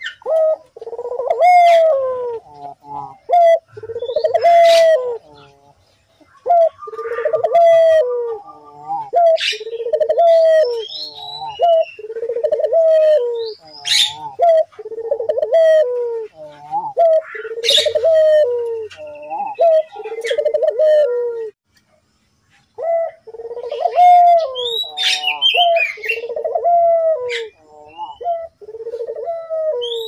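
Puter (ringneck dove) cooing over and over, a low rolling coo about every second with a short break about two-thirds of the way through. Other small birds chirp at a higher pitch over it.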